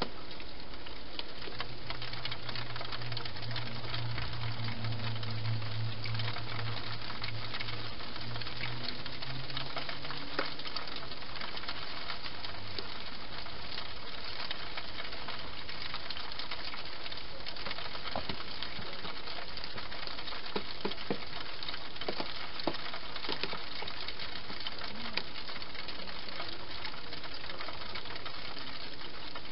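A wild hedgehog eating dry food at a feeding station, its crunching and chewing heard as scattered short clicks that come thickest in the second half, over a steady background hiss. A low hum runs for several seconds near the start.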